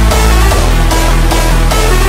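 Electronic dance music with a heavy bass and a steady beat.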